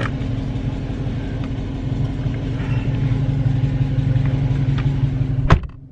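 Car engine running with a steady low drone. A sharp click near the end, after which the sound cuts off suddenly.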